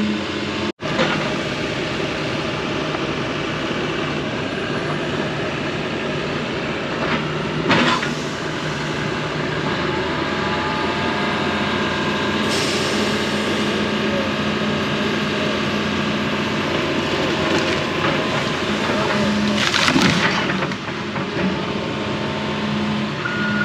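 Diesel excavator running steadily while working trees, with a few sharp cracks and crashes of breaking wood as limbs and trunks are pushed down.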